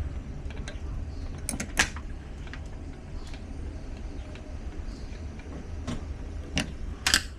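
Sliding patio door handle and lock hardware being worked on with hand tools: a handful of sharp clicks and knocks, loudest about two seconds in and twice near the end, over a steady low rumble.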